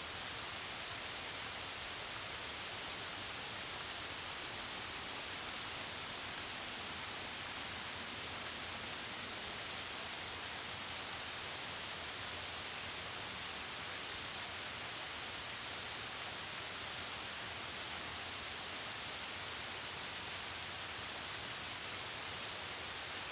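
Mountain waterfall rushing steadily over rocks, heard as an even, unbroken hiss.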